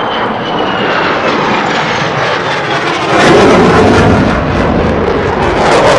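Military jet flying past: a high turbine whine falls in pitch as it closes in, under a growing jet roar that jumps louder about three seconds in and stays loud.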